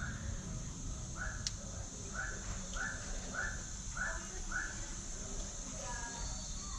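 An animal calling: one short harsh call, then about a second later a run of six more, evenly spaced about half a second apart, over a faint steady high hiss.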